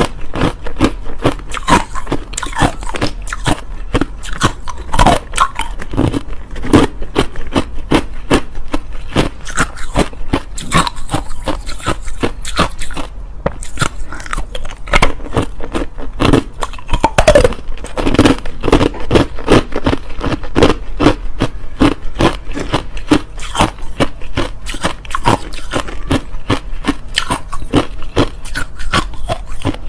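Hard crushed ice being bitten and chewed close to the microphone: a fast, continuous run of sharp crunches and cracks, with a short pause about 13 seconds in.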